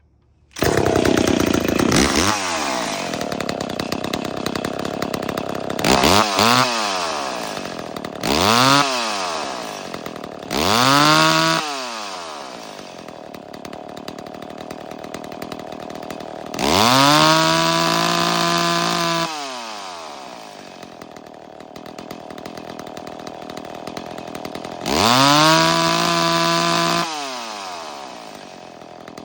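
McCulloch Pro Mac 850 two-stroke chainsaw starting warm and idling. It is blipped three times, then twice held at wide-open throttle for about two seconds at a steady high pitch before dropping back to idle: a maximum free-rev check of the high-speed tune with bar and chain on.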